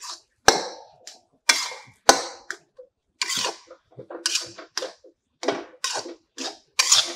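Metal spatula stirring thick semolina halwa in a metal kadai, knocking and scraping against the pan in short, uneven strokes about twice a second. The halwa comes away cleanly from the pan's sides, the sign that it is cooked.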